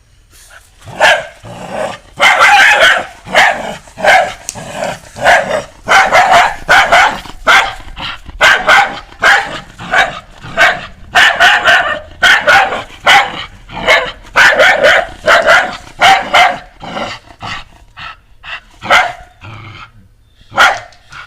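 Dog barking over and over in quick runs of short, loud barks, starting about a second in and thinning to a few separate barks near the end.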